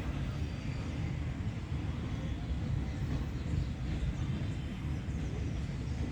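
Steady low rumble of a heavy engine running, with no change in pitch or level.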